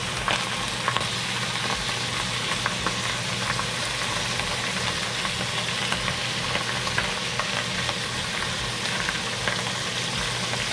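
Seasoned croaker fish fillets sizzling in butter in a hot cast-iron pot: a steady frying hiss with a few faint crackles.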